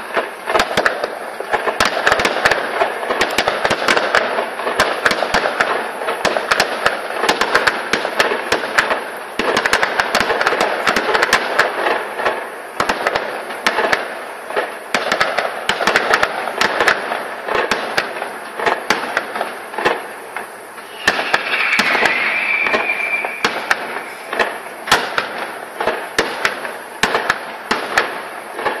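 Fireworks display going off continuously: dense crackling with many sharp bangs in quick succession. A brief high whistling tone rises over it about three quarters of the way through.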